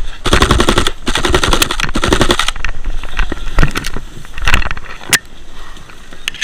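Airsoft guns firing on full auto: a long rapid burst for about the first two and a half seconds, then scattered single shots and short bursts.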